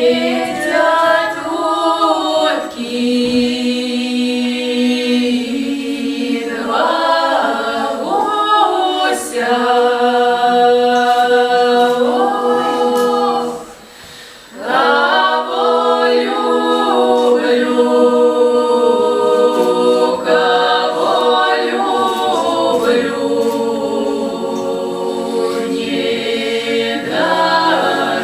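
Folk vocal ensemble singing a cappella in the southern Russian Voronezh folk style, several voices holding long drawn-out notes in harmony, with a short break for breath about halfway through.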